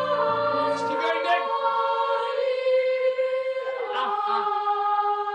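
Boys' choir singing long held notes, a lower voice dropping out about a second in and the pitch changing about four seconds in.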